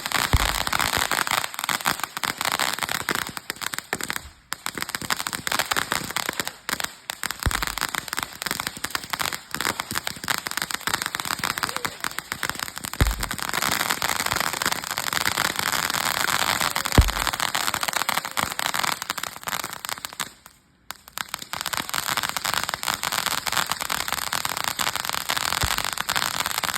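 Fireworks going off in a dense, rapid crackle of small bangs, with a few deeper thumps scattered through. The crackling breaks off briefly twice, about four seconds in and again near twenty-one seconds, then starts up again.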